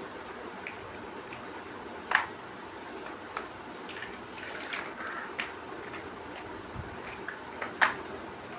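Plastic toy building bricks handled and pressed together: scattered light taps and rattles, with two sharp clicks about two seconds in and near the end, over a steady hiss.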